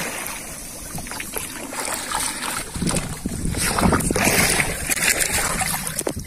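Shallow water splashing and sloshing in several surges as a person thrashes about submerged beside a fishing spear pole.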